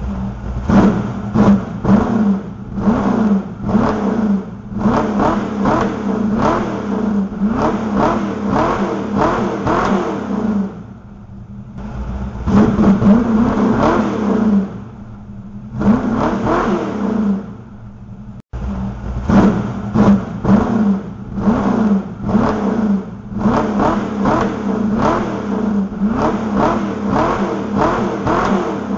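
Kit car engine running through its freshly welded exhaust, being blipped over and over: the revs rise and fall quickly on top of a steady idle. It drops back to idle a couple of times, about a third and halfway through.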